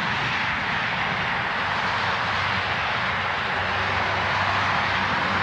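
Steady roar of city street traffic, with a low engine hum joining about halfway through.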